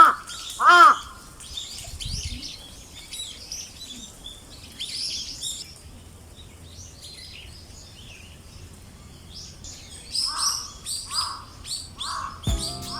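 A crow cawing twice at the start, then small birds chirping and twittering on and off.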